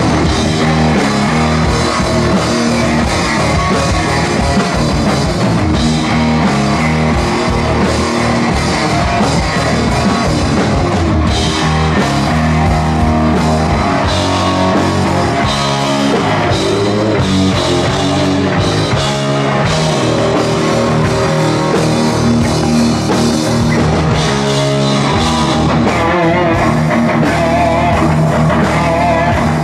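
Live rock band playing loudly: electric guitars, bass guitar and drum kit together, without a break.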